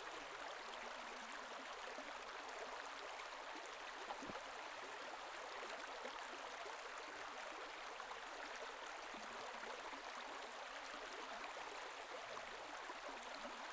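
Faint, steady rush of flowing water in a canal or river, with a small click about four seconds in.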